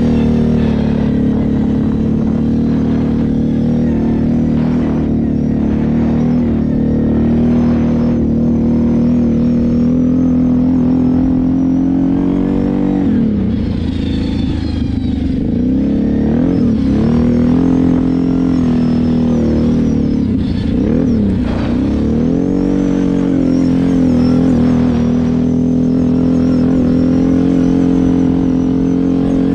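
Kawasaki KFX 700 quad's V-twin engine running under throttle at steady revs. In the middle stretch the revs drop and climb back several times as the throttle is eased and reopened.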